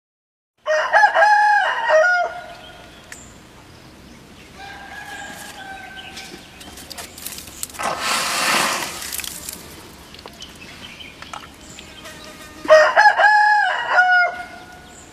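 A rooster crowing twice, the same multi-syllable crow about a second in and again near the end. A short rushing hiss comes in between, about halfway through.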